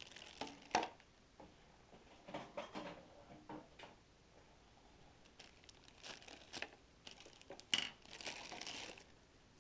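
Plastic packaging bags crinkling in short bursts as a bagged power supply and cable are handled, with a few sharp hard-plastic knocks, the loudest about a second in and near the end.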